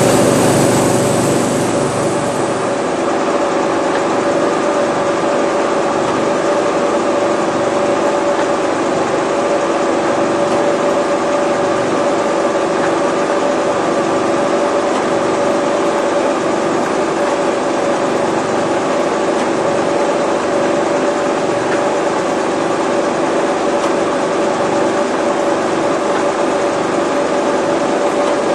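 Grain combine running steadily while harvesting, its engine and threshing machinery giving an unbroken hum with a steady high whine on top. The sound eases slightly about two seconds in.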